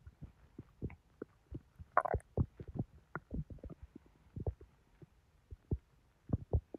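Bowel sounds of a bloated, distended belly digesting a heavy meal: irregular soft pops and thumps, with a short gurgle about two seconds in.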